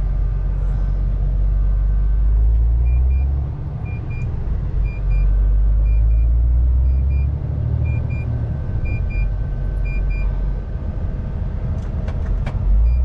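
Truck cab interior while driving: a steady low rumble of engine and road noise that swells and eases a few times. From about three seconds in, a short high electronic double beep from the dashboard repeats roughly once a second.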